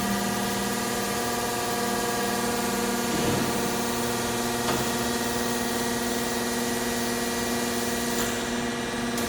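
Hydraulic 3D bending machine running: a steady hum with a hiss over it, and a few light knocks as it works.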